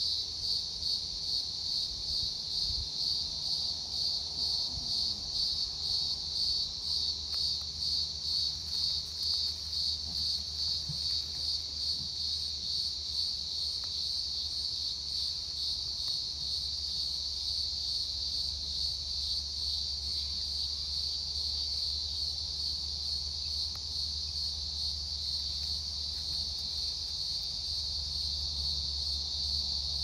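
Insects singing: a high, steady buzz that pulses about two to three times a second for the first dozen seconds, then evens out into a continuous drone.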